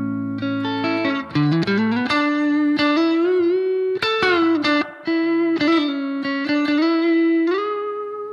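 Electric guitar through a Fender Deluxe-style amp model with compression: a lead line of single plucked notes with a pitch bend and vibrato, ending on one held note that slowly dies away.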